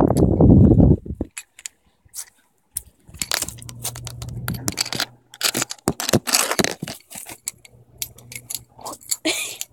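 Handling noise from a phone being moved about: a loud low rumble on the microphone in the first second, then a run of sharp clicks, scrapes and small rattles, with a faint low hum underneath from a few seconds in.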